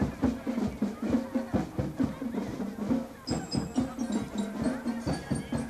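Marching band playing as it passes: drums beating a steady march rhythm under a sustained melody, with high ringing bell-like notes joining a little after halfway.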